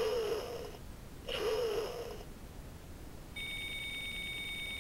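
Sound effects from the talking Ash toy's small electronic speaker during its battle game: two short wavering bursts in quick succession, then, about three and a half seconds in, a steady high electronic ringing tone with a fast pulse.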